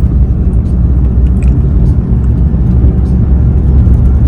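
Steady, loud low rumble of driving noise in a BMW E46 318i cruising on a smooth toll road.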